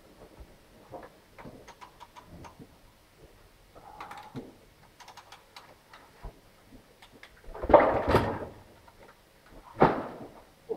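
Light, irregular clicking of a calf puller being worked during the delivery of a calf from a Holstein heifer. Then two loud rustling thuds in the straw, the first and longest about eight seconds in and a shorter one just before ten seconds.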